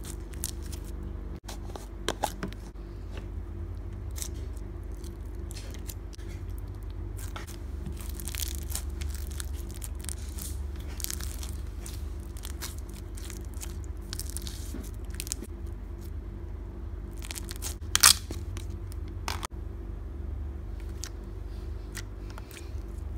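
Clear slime full of air bubbles being stretched, squeezed and poked with long fake nails: a steady run of crackling pops and crunchy clicks as the trapped bubbles burst, with one louder snap about eighteen seconds in. A steady low hum sits underneath.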